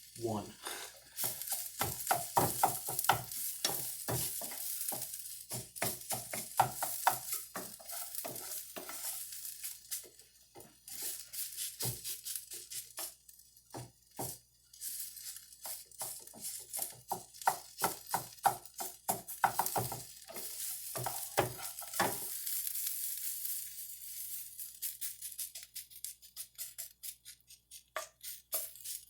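Cauliflower rice and eggs sizzling in a frying pan while a utensil stirs them, with frequent irregular scrapes and taps on the pan over a steady hiss.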